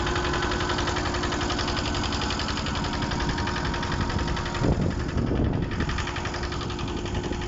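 A motor-driven machine running steadily with a fast, even pulsing and a steady hum. About two-thirds of the way in there is a brief rougher, louder patch.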